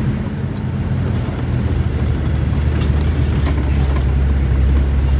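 Four-wheel drive being driven: a steady low engine drone with road noise that grows louder from about two seconds in.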